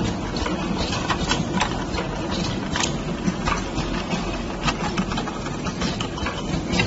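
Can packaging-line conveyor running: a steady motor hum with irregular clicks and clatter as the modular plastic belt carries open metal cans along the guide rails.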